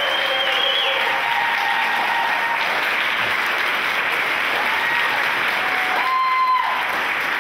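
Crowd of party guests applauding steadily.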